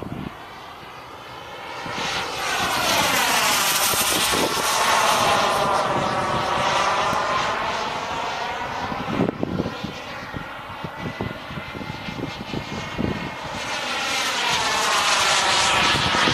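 Turbinator radio-controlled sport jet's engine running as the model flies past, swelling about two seconds in, fading in the middle and growing loud again near the end.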